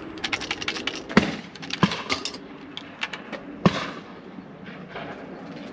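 A quick run of sharp clicks and knocks, with louder single cracks about a second in, near two seconds and near four seconds.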